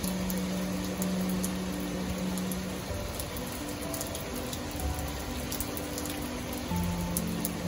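Steady heavy rain falling on the city, under soft background music of slow, held notes.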